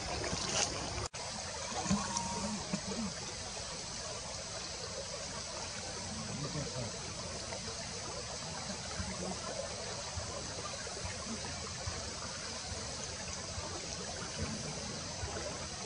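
Steady outdoor background hiss, broken by a brief dropout about a second in.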